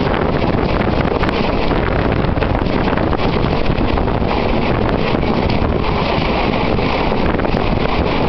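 Wind buffeting the microphone at the open window of a moving train, over the steady running noise of the train on the track, loud and unbroken.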